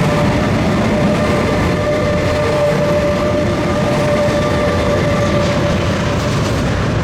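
Intermodal (combined-transport) freight train rolling out of the station, its wagons running with a steady squeal over a loud rumble.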